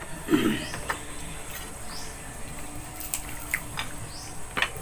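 Eating sounds close to the microphone: wet mouth clicks and smacks, scattered and irregular, as people chew fried chicken and rice. A brief hum from a voice about a third of a second in.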